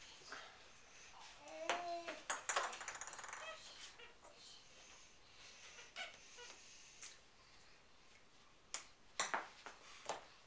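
A few sharp knocks and taps at irregular intervals, with brief voice sounds from a child in the first few seconds.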